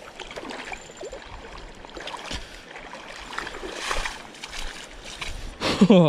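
Water splashing and stones crunching as a small fish is reeled in through shallow water and landed on a gravel bar, with a short, loud, falling vocal exclamation near the end.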